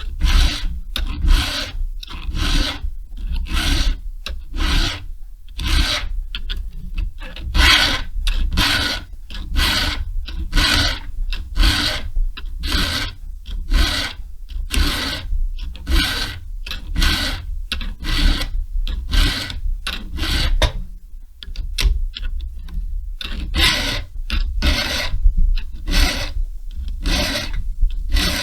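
A chainsaw file rasping across the cutters of a saw chain in steady, even strokes, about one and a half a second, with a short break about 21 seconds in. The cutters are being re-sharpened from full-chisel to a shallower milling angle.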